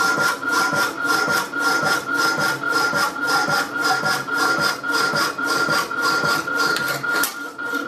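Rapidor power hacksaw cutting steel tube, its blade rasping in a steady, even rhythm of strokes over a steady high whine. On each backstroke the newly working damper lifts the blade off the work. The sound stops abruptly at the very end.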